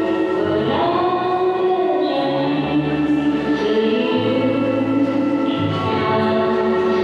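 Music for a dance performance: sustained, choir-like voices whose pitches glide slowly, over a low steady drone.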